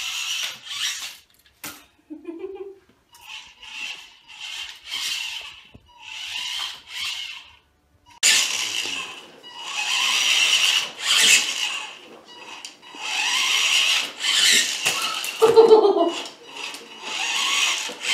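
A toy RC car's electric motor whirring in repeated bursts of about a second, stopping and starting as the car drives about. It gets louder about eight seconds in.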